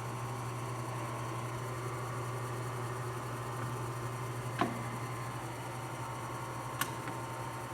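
Nardini Mascote MS1640 16x40 engine lathe running at a slow spindle speed of about 100 RPM, a steady hum with a faint whine over it. Two short clicks come a little past halfway and about two seconds later.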